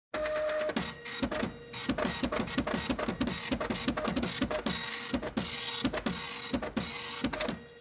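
Stop-motion LEGO sound effects: a rapid run of plastic clicks, about five a second, each with a short falling blip, as bricks snap onto a baseplate one after another. Under them runs a faint steady hum.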